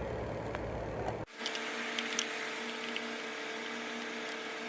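A steady mechanical hum that cuts off abruptly about a second in, followed by a quieter steady hum with a few faint small clicks.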